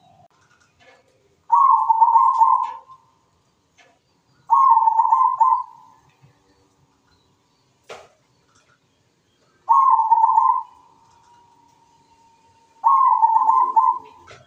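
Zebra dove (perkutut) singing its cooing song: four loud phrases of about a second each, a few seconds apart. A single sharp click sounds near the middle.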